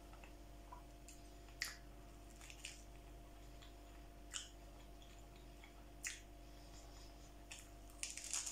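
Faint crackling of a crisp lettuce leaf on a sandwich as it is handled, with a few sharp crackles spread out, then a quick run of crunches as it is bitten near the end.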